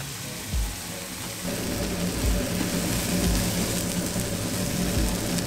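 Vegan tofu omelette mixture sizzling in a hot frying pan as the oat-milk and spice liquid is poured over the fried tofu, onion and tomato and stirred in. The sizzle gets louder about a second and a half in.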